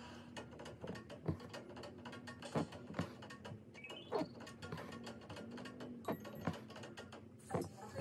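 Hand embroidery needle piercing cotton-linen fabric stretched tight in a hoop and stranded cotton floss being drawn through it, giving sharp little ticks and pops at an irregular rate of about one a second.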